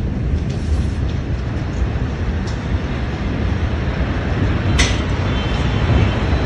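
Continuous low rumble and wind noise on a phone's microphone in amateur footage of a large explosion's aftermath, with one sharp crack or clatter about five seconds in.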